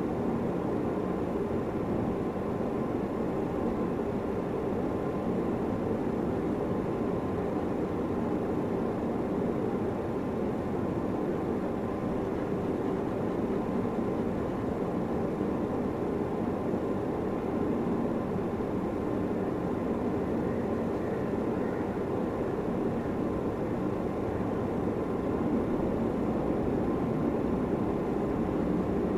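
Steady low rushing background noise that never changes, with a faint steady tone in it and no separate strokes or knocks.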